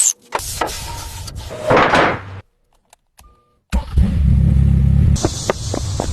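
Car engine running in short edited clips: a low rumble that swells briefly, cuts to about a second of silence, then comes back louder and keeps running.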